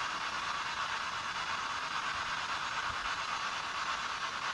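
Steady background hiss with no distinct event, and a faint low thump about three seconds in.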